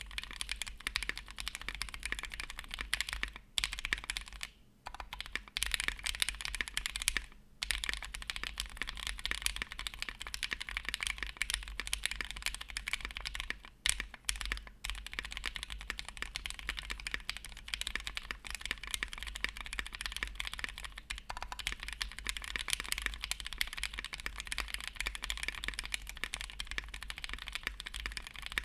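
Steady fast typing on an IDB60 custom mechanical keyboard with lubed Alpaca linear switches (205g0 lube) and GMK keycaps, a dense run of keystrokes broken by a few short pauses.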